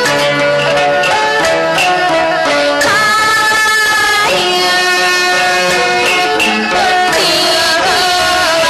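Traditional Chinese opera accompaniment music: a sliding melodic line over short, regularly repeating percussion taps.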